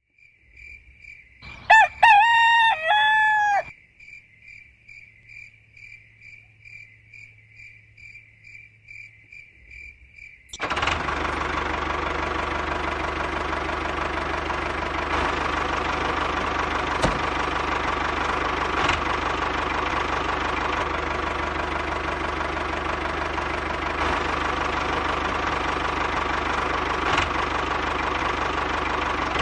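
A rooster crows once, loudly, about two seconds in, over a faint high chirp repeating about four times a second. About ten seconds in, a tractor engine starts running abruptly and keeps running steadily at an even pace.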